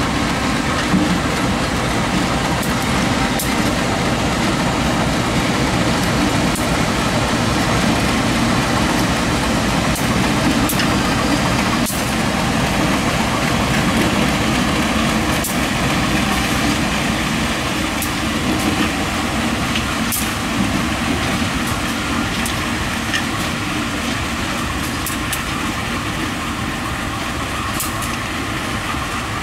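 Two coupled diesel-electric locomotives running light, their engines giving a steady, loud rumble as they move past and away. Scattered sharp clicks sound throughout. The rumble eases slightly near the end.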